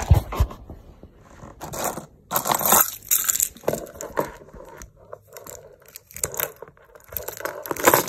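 Citroen C1 door lock cylinder handled with its key: irregular metallic clicks, scrapes and rattles as the key is pushed in and worked, with a few low handling thumps at the start. The barrel won't pull free because its wafers are bent.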